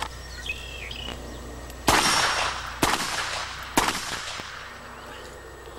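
Three pistol shots about a second apart, each a sharp crack with a short echo trailing after it.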